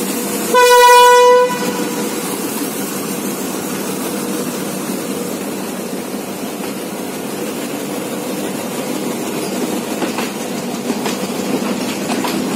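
A Class M7 diesel-electric locomotive sounds one horn blast of about a second, a single steady note, just after the start. Passenger carriages then roll steadily past, with wheel clicks over the rail joints near the end.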